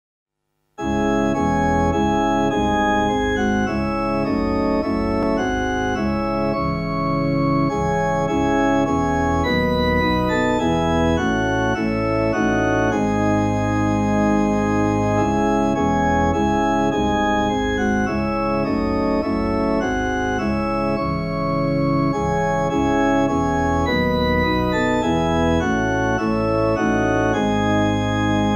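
Church pipe organ playing the hymn tune through before the singing, sustained chords moving steadily from one to the next; it starts about a second in after a short silence.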